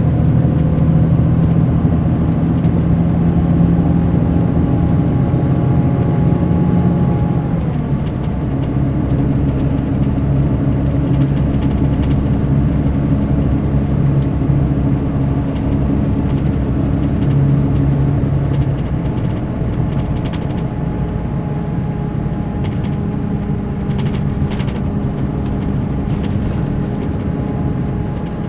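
Mercedes-Benz O500 RSD BlueTec5 coach's diesel engine running steadily. Its pitch drops about a quarter of the way in, and the sound gets a little quieter again later on.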